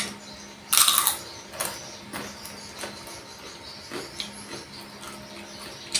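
A person biting and chewing a crisp rempeyek (peye) cracker close to the microphone: one loud crunching bite about a second in, then scattered smaller crunches.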